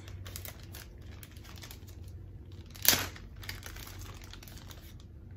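A small plastic bag of jigsaw puzzle pieces being handled and opened: light crinkling of the plastic and small clicks from the pieces, with one short, louder crackle about three seconds in.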